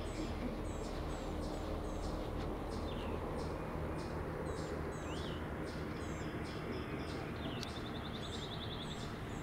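A bird calling over and over in short high chirps, about two a second, over a steady low outdoor background hiss.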